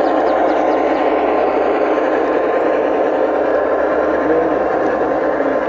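Garden railway model train rolling past close by, its freight cars' wheels running on the track with a steady rolling noise and a faint steady hum.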